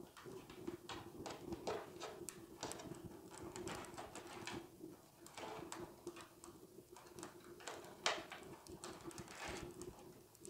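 Dry rolled paper tubes clicking, tapping and rustling against one another as they are twined by hand around paper-tube stakes: an irregular run of light clicks.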